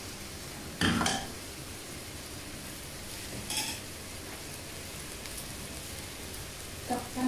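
Pork frying in a steel wok with a steady sizzle, while a spatula stirs it and clatters against the pan about a second in, again midway and near the end.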